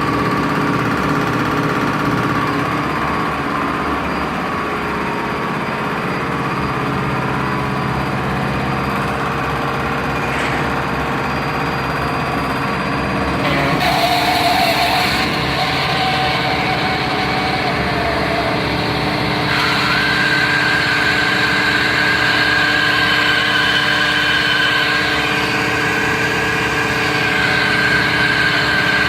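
John Deere tractor hydraulic pump running on a test stand: a steady machine hum made of several held tones. About halfway through the sound shifts, and a little later a high, steady whine sets in.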